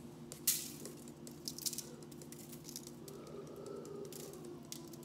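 A shaker jar of lemon pepper seasoning is shaken over fish fillets on a foil-lined pan. There is a sharp knock about half a second in, then a few light rattles from the seasoning in the jar, over a steady low hum.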